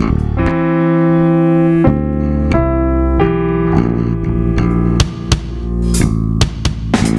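A small band playing a funk groove: electric bass and keyboard chords, with a few drum hits from an electronic drum kit in the second half.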